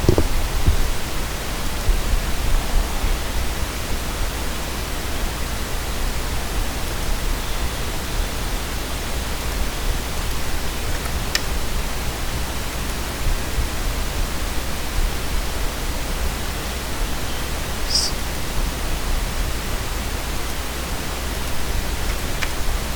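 Steady hiss with a low hum underneath, from the recording's microphone and electrical noise, with a few faint clicks near the middle and the end.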